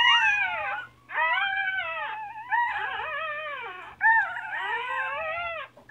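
Newborn puppies crying with high whines that rise and fall, several voices overlapping in long runs, with short pauses about a second in and about four seconds in.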